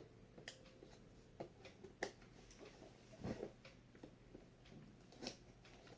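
Faint, scattered clicks and short scrapes of a knife cutting packing tape on a cardboard box, the loudest a little past halfway.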